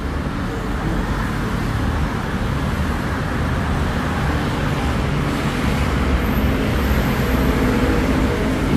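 Steady road traffic noise: motor vehicles running and passing on a busy city road, with an engine hum growing a little louder near the end.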